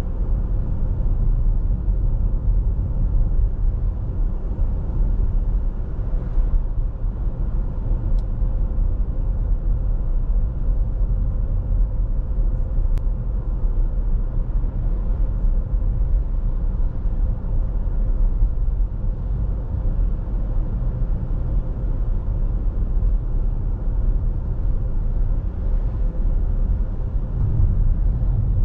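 Steady low rumble of a car driving on a paved road, heard from inside the cabin: tyre and engine noise.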